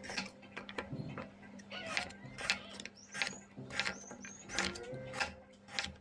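Kitchen knife slicing a raw carrot into rounds on a wooden cutting board: about ten crisp cuts at uneven intervals, each ending in a knock of the blade on the board.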